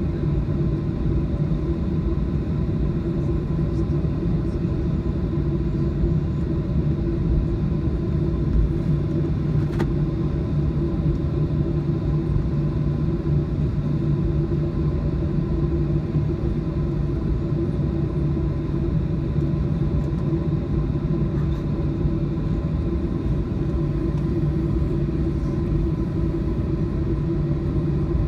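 Boeing 737-800 cabin noise while taxiing: the CFM56-7B engines at idle with the tyres rolling, a steady rumble with a few held hums.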